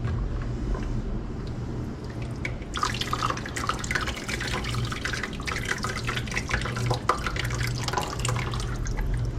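Cooking broth from boiled possum meat dripping and splashing, with many small irregular wet clicks from about three seconds in, over a low steady hum.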